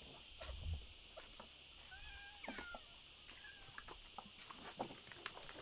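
A domestic cat meows a couple of short times about two seconds in, with a low thump about half a second in and scattered light knocks, over a steady high hiss.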